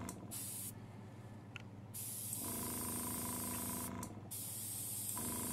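Iwata gravity-feed airbrush spraying paint in on-off bursts of air-and-paint hiss: it stops under a second in, starts again about two seconds in, pauses briefly around four seconds, then resumes. A steady low hum runs underneath.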